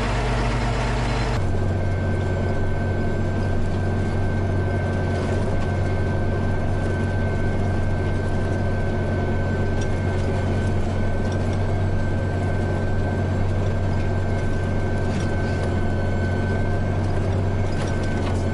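Heavy farm machine's engine running steadily under load, a deep hum with a thin steady whine above it. The sound changes abruptly about a second and a half in, then holds steady.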